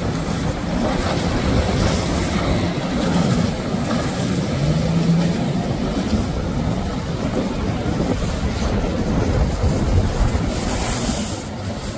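Jet ski engines running at speed over choppy water, mixed with the rush of wash and spray and a low wind rumble on the microphone. The sound eases off slightly near the end.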